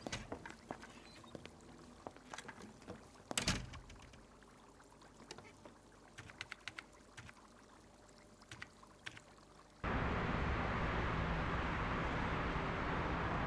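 Scattered light clicks and taps with one louder knock, then a sudden steady rushing noise, like running water, that lasts about four seconds to the end.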